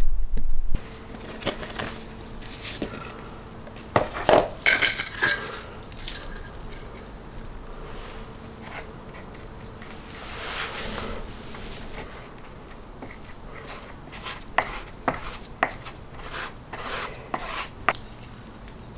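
Scattered light clicks, taps and clatters of objects being handled, over a faint steady hum. A louder low rumble cuts off suddenly under a second in.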